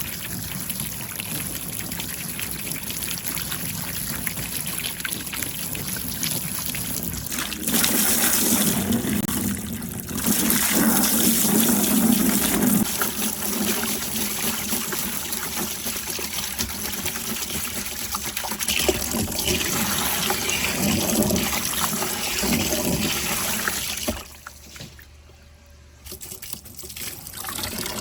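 Water running and trickling along a water marble run, louder for several seconds about a third of the way in, then dropping away for a couple of seconds near the end before picking up again.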